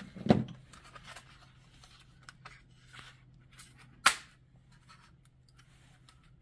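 Plastic instrument-cluster parts being handled and fitted back together. There is a knock a fraction of a second in, a sharp click about four seconds in, and small clicks and rustling between them, over a faint steady hum.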